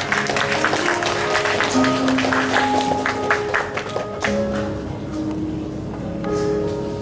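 Instrumental background music with held notes. Clapping runs over it for the first four seconds or so, then fades.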